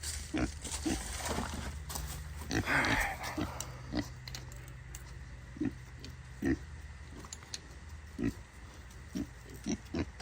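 Pig grunting in short, repeated grunts, with a brief hissing burst about three seconds in.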